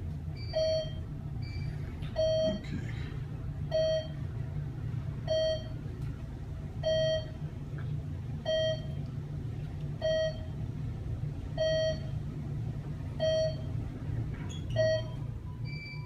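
ThyssenKrupp traction elevator's floor-passing beep sounding ten times, one short beep about every 1.6 seconds, over the steady low hum of the car travelling up.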